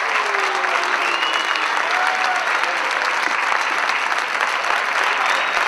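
Theatre audience applauding, steady clapping with a few voices calling out over it.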